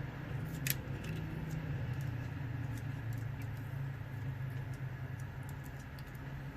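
Faint scattered clicks and light scraping from handling and working a small transformer by hand, over a steady low hum, with one sharper click under a second in.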